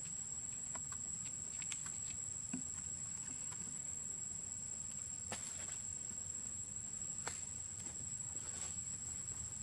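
Steady high-pitched insect drone, a single held tone, over a low steady rumble, with a few faint scattered clicks.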